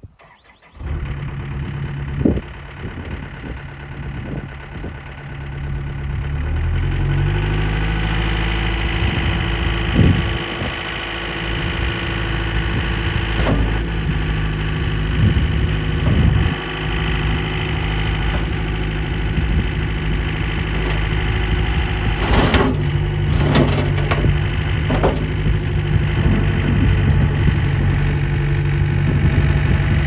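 Yanmar 68 hp diesel engine of a tracked skid steer, coming in about a second in and then throttling up to a steady higher speed, with a further rise in engine speed near the end. Occasional sharp clanks from the machine as it moves and works its bucket.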